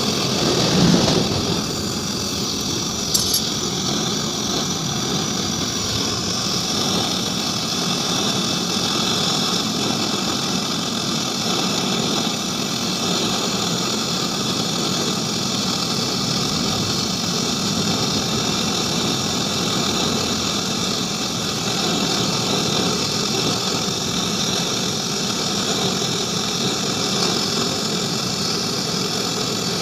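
A motor-driven machine running steadily, with a short click about three seconds in.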